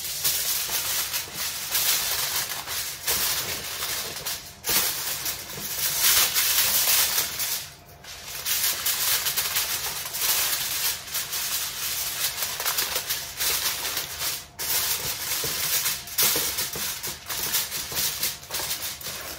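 Aluminium foil crinkling and rustling as a sheet is pulled over a roasting tray and pressed around its edges. It goes on almost without a break, pausing briefly three times.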